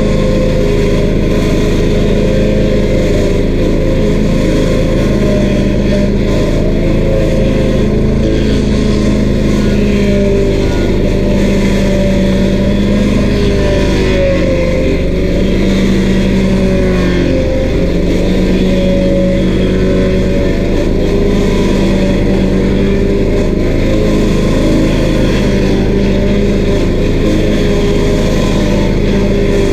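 Stump grinder's 13 HP Honda engine running steadily at high speed while the cutter wheel grinds a stump, its pitch wavering a little under the load.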